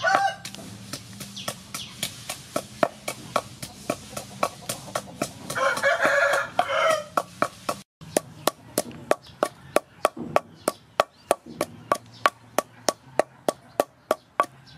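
Wooden pestle pounding chilies in a large wooden mortar, a sharp knock with each stroke, about three strokes a second. A rooster crows about six seconds in.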